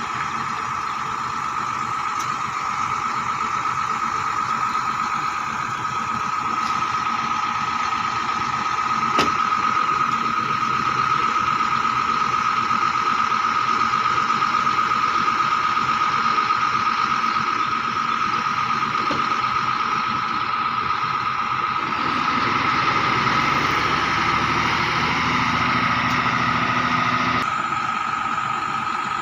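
Vehicle engine idling steadily, with a high-pitched whine running over it. The sound changes about two-thirds of the way through and again near the end.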